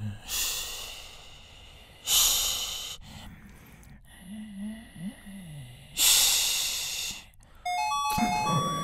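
A person imitating a Tokyu 8500 series train with their mouth: three loud hisses of compressed air, as at a stopped train, with low hummed tones between them and a short run of high stepped tones near the end.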